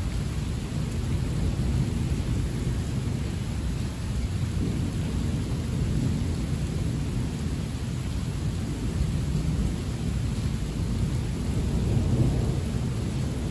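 Heavy rain with low, rolling thunder rumbling through it, swelling about halfway through and more strongly near the end.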